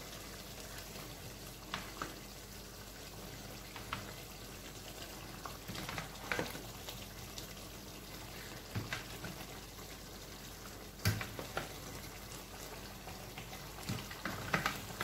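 Pot of catfish and sorrel soup simmering on the stove: a steady low bubbling sizzle, with a few sharp light knocks scattered through it.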